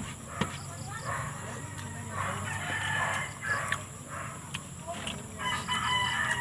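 A rooster crows about two seconds in and again near the end. Small clicks of hand-eating sound close by.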